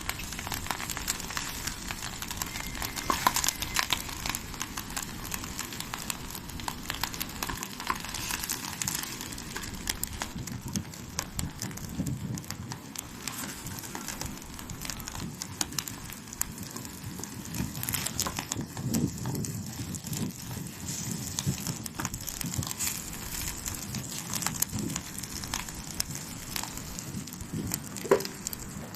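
Wood campfire burning, crackling with frequent small irregular pops and snaps over a steady hiss.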